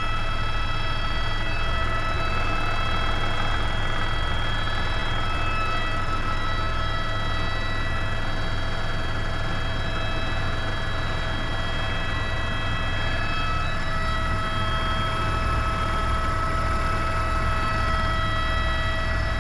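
Tour helicopter's turbine and rotor heard from inside the cabin in the climb after takeoff: a steady loud drone with several fixed whining tones over a low rotor rumble.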